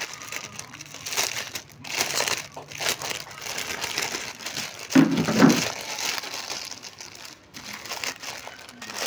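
Clear plastic polybag around a T-shirt crinkling and rustling as it is handled and opened, in irregular bursts. The loudest, deepest rustle comes about five seconds in.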